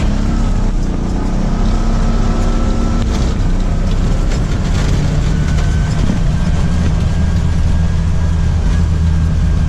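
Moto taxi engine running steadily.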